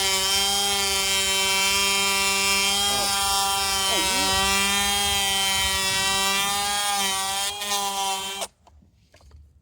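Electric power tool motor running at a steady speed with one constant pitch, then cutting off abruptly near the end.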